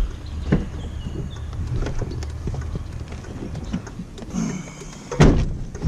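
Knocks and clatter of scrap being handled, over a low steady rumble, with the loudest thump about five seconds in.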